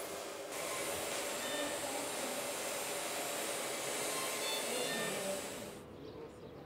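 Steady airy hiss of intensive-care ward equipment and air, with a few faint short high tones over it. It drops away to a much quieter background about six seconds in.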